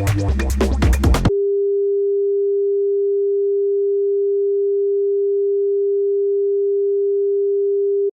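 Electronic music with a beat cuts off abruptly about a second in, replaced by a single steady electronic pure tone held at one pitch for about seven seconds, which then stops abruptly.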